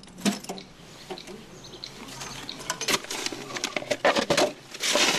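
A bunch of keys clinking as a key works the lock of a small metal mailbox, with sharp clicks. Then paper rustles and crackles as folded notes are pulled out of the box, loudest near the end.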